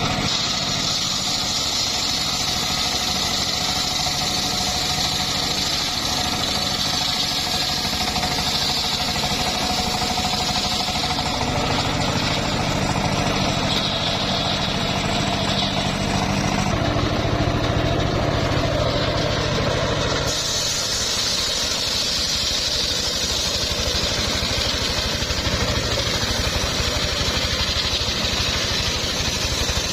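Engine-driven homemade circular sawmill running steadily, with a high hiss over the engine; the engine note shifts a little over halfway through and again a few seconds later.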